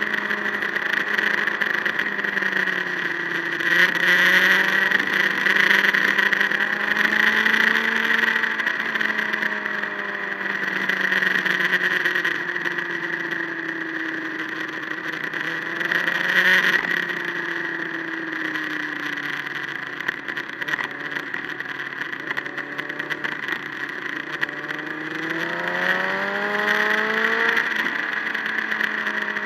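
Engine of a vehicle being driven along a winding road, its pitch falling and rising again several times and climbing steadily near the end as it accelerates, over steady wind and road noise.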